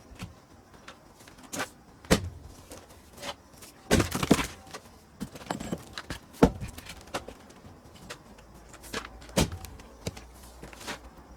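Pine firewood being split and handled: irregular sharp wooden knocks and thuds. The loudest come about two, six and a half and nine and a half seconds in, with a quick cluster of knocks around four seconds.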